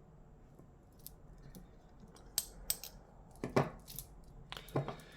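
A handful of sharp metallic clicks and snaps from folding pocket knives being handled, starting about halfway through: blades and locks clicking as the knives are moved and opened for comparison.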